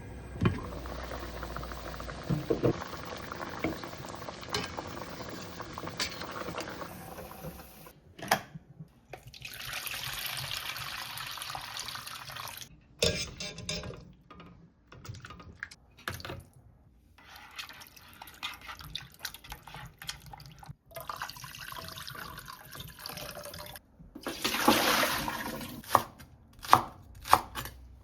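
Water running at a kitchen sink in several separate stretches, as ingredients are rinsed. Sharp knocks of bowls and utensils come in between, several of them near the end.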